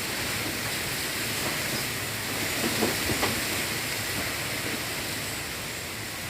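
Strong wind blowing, a steady rushing noise, with a few short knocks about three seconds in.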